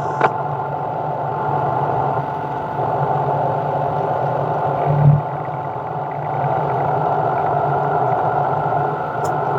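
A shop machine running steadily, with a brief louder swell about five seconds in.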